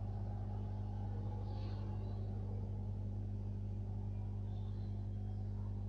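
Steady low hum with no change in level, with two faint short high sounds about two seconds and five seconds in.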